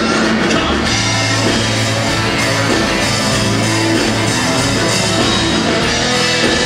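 Live country-rock band playing loudly: electric guitar to the fore over drums and bass, in a stretch with little or no singing.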